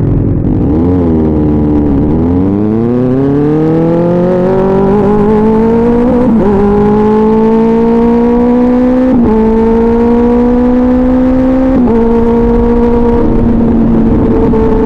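2024 Kawasaki Ninja ZX-6R inline-four through an SC Project aftermarket exhaust, accelerating hard and shifting up through the gears. The pitch climbs and drops briefly at each of about four shifts, then holds nearly steady near the end.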